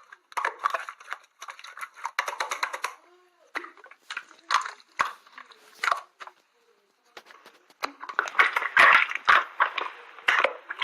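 Slime being squished and pressed by hand: a run of sticky clicks and crackles that grows thicker and louder in the last few seconds.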